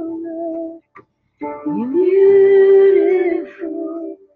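Music: a woman singing a slow song, holding long notes. The singing breaks off briefly about a second in, then comes back with a note that slides up and is held loud for over a second.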